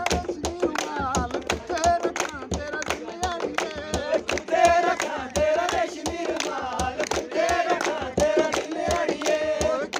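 Men singing a Dogri folk song, unaccompanied apart from steady hand-clapping on the beat.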